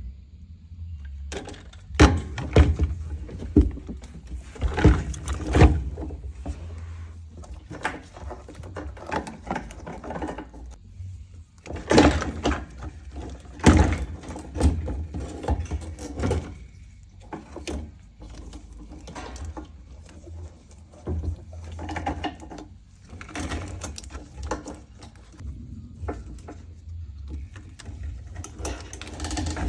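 Irregular knocks, clicks and clatter, as of tools and parts being handled, over a steady low hum.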